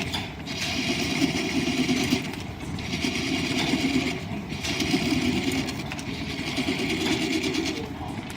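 Line-shaft-driven wood lathe running while a turning tool cuts the spinning wood in repeated passes. Each pass lasts a second or two, with short breaks between passes.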